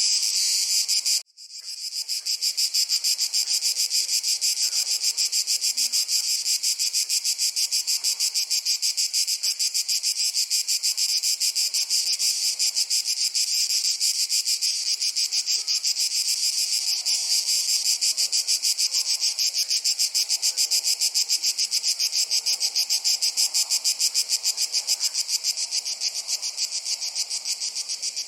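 Crickets chirping in a dense, fast, even pulsing that runs steadily on. The sound cuts out sharply for a moment just over a second in.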